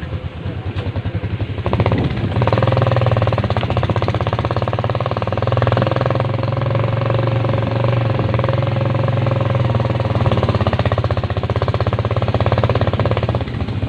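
A small engine running at a steady speed. It picks up about two seconds in, holds an even pitch, and eases off just before the end.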